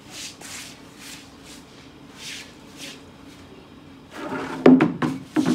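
Short bundled-stalk broom sweeping water across a wet concrete floor in repeated short swishes, then a cluster of loud knocks and clatter about four seconds in.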